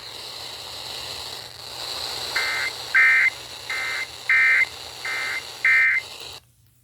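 Emergency Alert System end-of-message data bursts received over FM radio: six short, buzzy two-tone warbles, evenly spaced and alternating weaker and stronger, over steady radio hiss. They mark the end of the warning. The signal cuts off sharply near the end.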